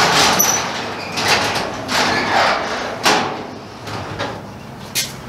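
Sectional overhead garage door being raised, running up in its tracks in uneven surges of noise for about three seconds, then a few short clicks.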